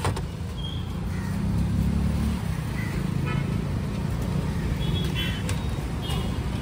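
Steady low rumble of a motor vehicle engine running, with a few brief, faint high-pitched tones over it.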